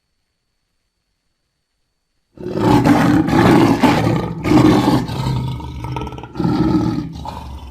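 About two seconds of dead silence, then an African lion roaring: several loud, deep roars one after another.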